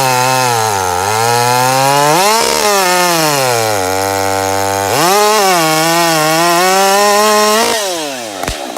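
A modified 50 cc two-stroke gas chainsaw cutting through a log at full throttle. Its engine pitch drops as it bogs under load in the cut and climbs again between, a few times over, then falls away near the end. A single sharp pop follows.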